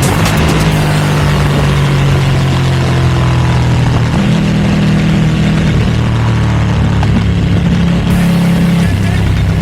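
Ducati V2's twin-cylinder engine running through a Termignoni exhaust at a steady engine speed, its pitch stepping up about four seconds in and shifting again near the end.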